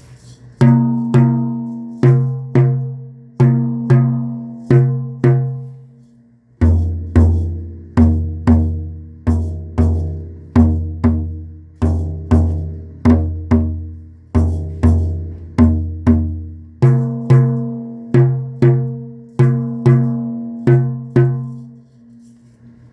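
Two bodhráns struck with single even beats, about one to two a second, each note ringing out. The smaller, higher-pitched drum plays first. About six seconds in, the beats switch to the larger, deeper drum for about ten seconds, then return to the smaller one.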